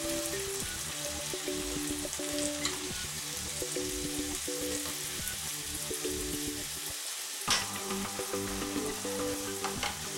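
Onions, peppers and halved boiled eggs sizzling in a frying pan while being turned with a wooden spatula and a spoon, with light scraping and a sharp knock against the pan about seven and a half seconds in.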